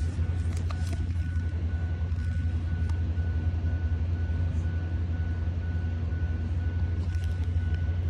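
A steady low hum or rumble with a faint high steady tone over it, from some machine running nearby; the truck itself is a no-start and is not running. A few light clicks of parts being handled in the engine bay.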